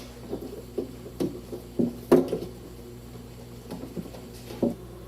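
Light plastic clicks and knocks from wiring connectors and harness being handled and pushed back into a car door, about half a dozen scattered taps, the loudest about two seconds in.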